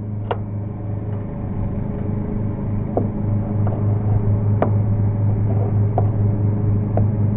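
A lawn mower's engine running steadily, getting louder over the first few seconds, with a few light clicks on top.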